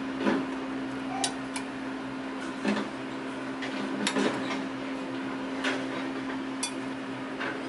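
Metal spoon stirring soup in a ceramic bowl, clinking against the bowl several times, over a steady low hum.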